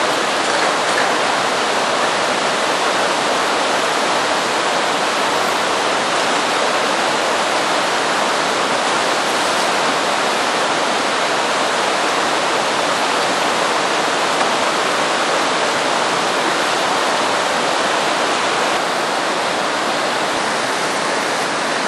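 Steady rush of a fast, shallow river running over rocks, a little quieter near the end.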